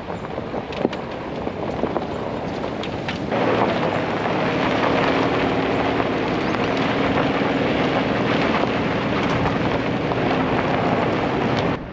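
A car towing a caravan drives along a dirt bush track: engine running and tyres rolling over gravel, with a few ticks and knocks early on and wind on the microphone. The noise jumps louder about three seconds in and cuts off suddenly near the end.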